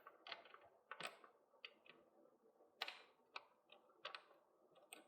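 Faint, scattered light clicks and taps of hand tools and small metal parts being handled while working on a bicycle frame, at irregular intervals, with a few slightly louder knocks about a second in, near three seconds and about four seconds in.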